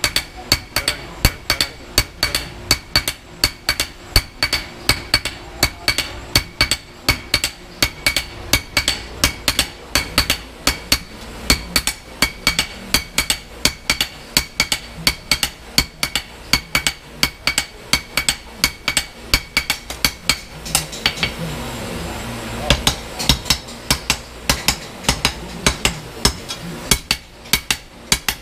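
Several hand hammers and sledges striking 5160 spring steel on an artillery-shell anvil in turn, a rapid steady rhythm of about three ringing metallic blows a second. The blows thin out briefly about three-quarters of the way through, then pick up again.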